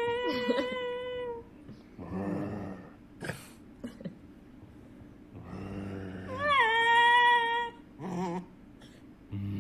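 A dog yowling: long, held, high-pitched howls near the start and again about six and a half seconds in, each led by low grumbling, with a short wavering cry about eight seconds in.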